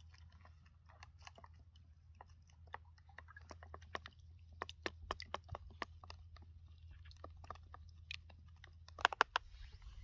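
Raw eggs being beaten in a small plastic tub with a wooden-handled utensil: wet, irregular clicks and taps against the tub, a few each second, with a quick loud flurry near the end.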